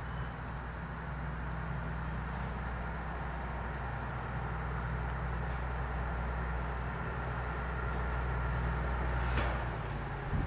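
Engine of the PS-00.M/b no. 31 rail maintenance vehicle running as it approaches slowly, a steady low drone that grows gradually louder. A short sharp click near the end.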